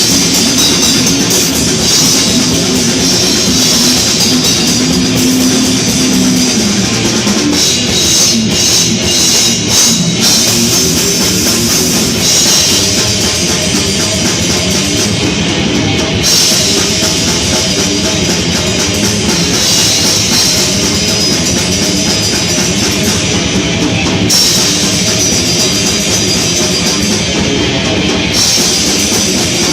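Heavy metal band playing live: distorted electric guitar, bass and drum kit with cymbals, loud and continuous.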